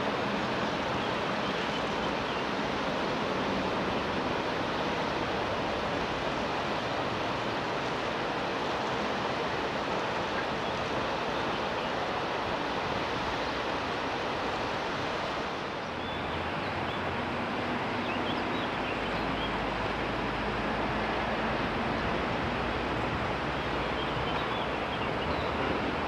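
Steady rushing of flowing water, like a mountain river in a gorge. About two-thirds of the way through, the sound changes: a low rumble joins, along with faint high chirps.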